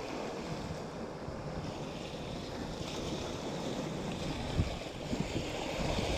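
Sea waves washing and foaming over shoreline rocks, a steady rush of surf, with wind buffeting the microphone.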